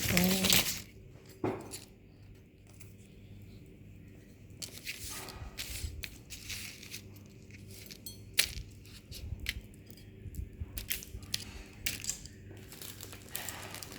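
Plastic model-kit parts and packaging being handled: irregular rustling and crinkling with scattered small clicks, the sharpest one about eight seconds in.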